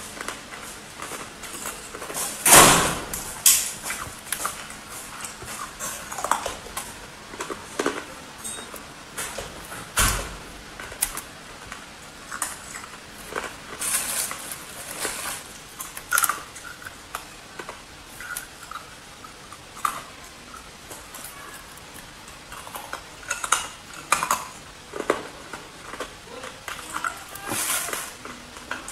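Hard ice being bitten and chewed: irregular sharp crunches and cracks, the loudest about two and a half seconds in. Near the end, a plastic bag rustles as more ice is picked from it.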